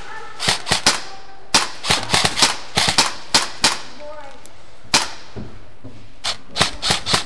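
Airsoft rifle shots fired one at a time in quick, irregular strings of sharp snaps, with a lull of about a second and a half near the middle before a few more shots near the end.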